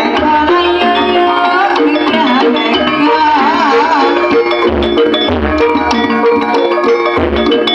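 Loud live music played through a sound system: a melody with a wavering, vibrato line over steady drum and percussion beats.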